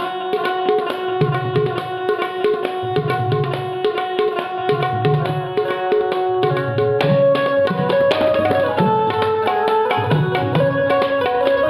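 Tabla and an Indian keyed banjo (benjo) playing together. The banjo plays a fast melody of rapid plucked, repeated notes, and the tabla keeps a steady rhythm whose low bass-drum strokes fall in groups about once a second.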